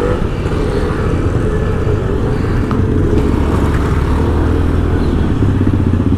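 Motorcycle engine running steadily while riding along a city street, with the hum of road traffic around it.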